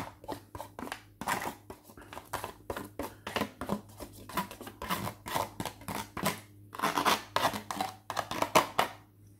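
A spoon scraping and knocking food out of takeaway containers onto a plate, in a quick irregular run of short scrapes and clicks, with a brief pause about six and a half seconds in.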